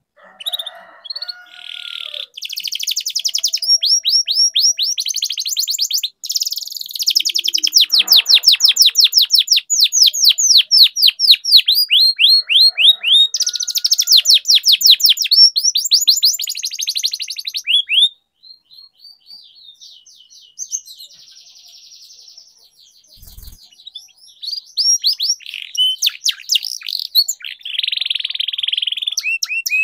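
Domestic canary in full, continuous song: long fast trills of rapidly repeated down-slurred notes alternating with buzzy rolls. The song goes softer and broken for several seconds past the middle, then picks up strongly again.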